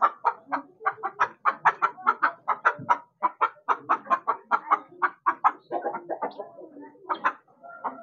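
Chickens clucking in a fast run of short, sharp calls, about four or five a second. The calls thin out over the last couple of seconds, with one louder call near the end.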